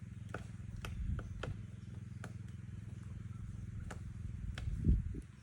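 Woodpecker pecking at wood: about eight single, sharp taps at an uneven pace rather than a drumming roll, over a steady low hum, with a dull thump near the end.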